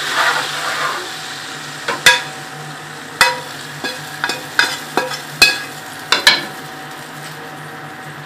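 Hot-oil tadka of browned onion and spices sizzling as it hits chickpea curry, dying away within the first second. A spoon then knocks against the pot about ten times as the curry is stirred, each knock sharp and briefly ringing.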